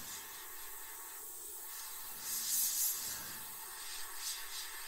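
Gaahleri Mobius airbrush hissing as it sprays thinned paint at slightly raised air pressure, with a louder burst of air a little past the middle and a shorter one near the end.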